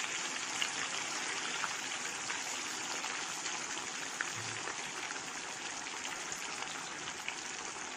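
Boiled taro root (arbi) pieces deep-frying in a large steel kadhai of hot oil: a steady sizzle of bubbling oil, with a few faint clicks as a slotted spoon turns the pieces.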